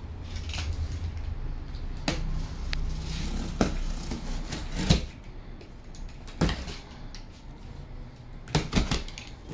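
Utility knife slitting the packing tape along the top seam of a large cardboard box, with scraping and several sharp knocks as the box and knife are handled. The loudest knocks come about halfway through and in a quick cluster near the end.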